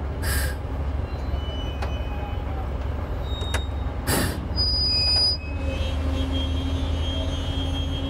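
The diesel engine of a 225-ton crawler crane running with a steady low rumble, broken by two short hisses, one right at the start and one about four seconds in. From about five and a half seconds a steady engine hum with a clear pitch joins.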